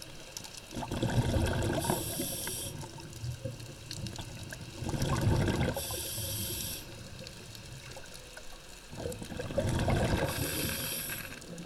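A diver breathing through a scuba regulator underwater: a low rush of exhaled bubbles, then the regulator's hiss on the inhale, repeating about every four and a half seconds, three breaths in all.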